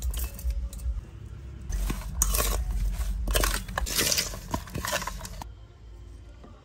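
Chicken feet and sliced lemongrass, garlic and chillies being tossed with a metal spoon in a stainless steel bowl: repeated wet scraping and rustling strokes with low thumps. The strokes stop abruptly about five and a half seconds in.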